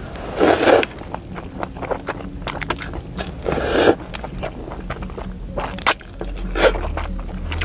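Close-up mouth sounds of a person eating saucy hand-pulled yellow noodles: long wet slurps about half a second in and again around three and a half seconds, a shorter one near the end, with chewing and lip smacks in between.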